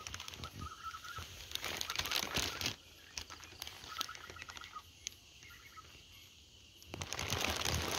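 Leaves and a plastic sleeve rustling and crackling as a rat snake is handled in a bush. The rustling is busy for the first two and a half seconds, drops to a few light clicks in the middle, and picks up again near the end.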